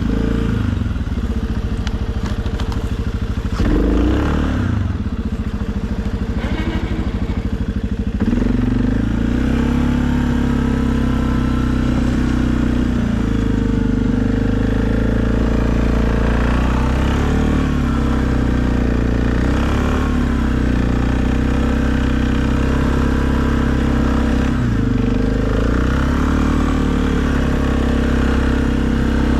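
Suzuki KingQuad ATV's single-cylinder engine running under load while plowing snow, its speed rising and falling, with a sharp change about four seconds in and again around eight seconds.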